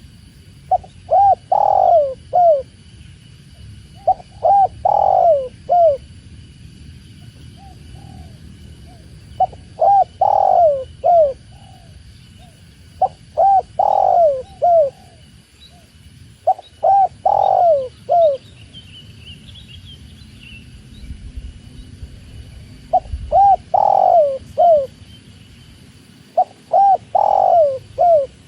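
Spotted dove cooing: a phrase of several rising-and-falling coos, repeated seven times at intervals of three to four seconds, over a low steady rumble.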